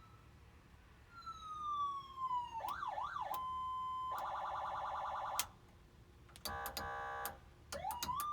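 HornBlasters 100-watt electronic police siren and PA unit being switched through its tones. A falling wail, a quick up-and-down yelp and a steady tone are followed by two buzzing horn blasts, with switch clicks between them, and a wail starts rising again near the end.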